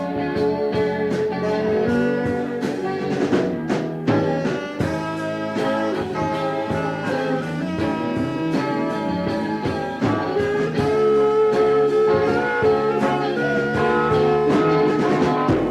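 A band playing an instrumental passage with a steady beat and held melody notes, without singing.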